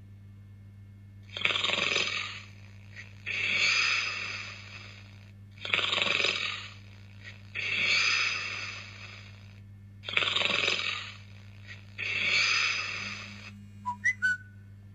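A person snoring: three breath cycles, each a shorter snore followed by a longer one, over a steady low hum. Near the end, three short chirping tones.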